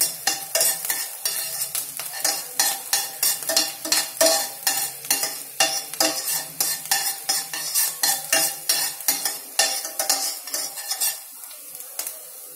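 A metal spoon stirring and scraping chopped green chilies frying in oil in a stainless steel pan, in quick repeated strokes over a steady sizzle. The stirring stops near the end, leaving only the sizzle.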